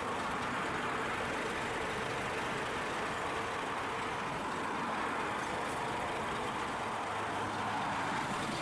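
Scania articulated truck's diesel engine running steadily at low revs as the tractor unit and its flatbed trailer move slowly past.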